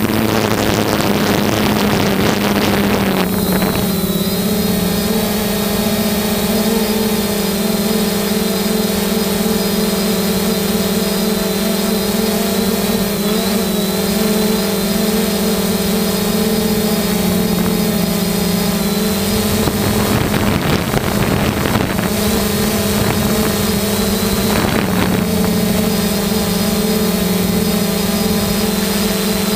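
3DR Solo quadcopter's motors and propellers humming at a steady pitch, picked up by the GoPro it carries. Wind noise on the microphone covers the hum for the first few seconds, and again briefly about twenty and twenty-five seconds in.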